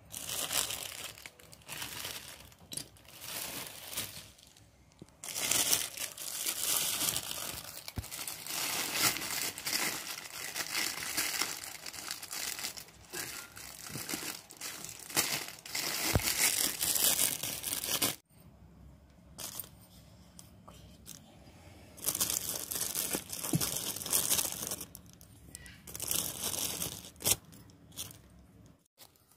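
A crumpled sheet crinkling and rustling in long bursts as small terracotta clay pots are handled and shifted around on it, with a few light knocks.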